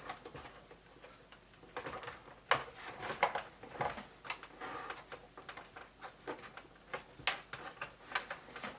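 Scattered light clicks and taps of plastic being handled as the Commodore 64's case is worked at by hand to pry it open, at an irregular pace with a few sharper clicks.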